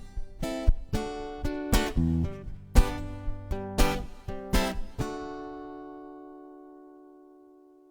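Acoustic guitar strummed in a run of chords, the last about five seconds in left to ring and slowly fade out.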